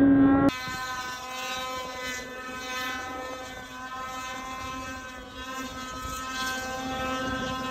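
Snowmobile engines heard from a distance as several sleds climb a steep powder slope, a steady engine drone with a faint hiss of wind. For the first half-second one sled's engine is heard close up and much louder, then it cuts to the distant sound.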